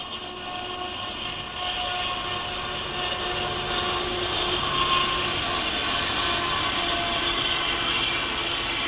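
Norfolk Southern freight train rolling by. The rail noise grows louder over the first couple of seconds and then holds steady.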